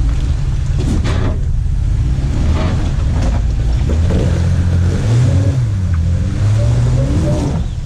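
Off-road vehicle's engine running and revving up and down with the throttle as it crawls over rocks, with a few brief knocks or scrapes.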